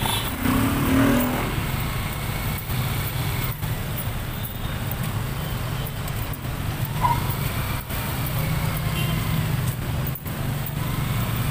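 City road traffic: car engines running and vehicles passing close by, a steady low rumble.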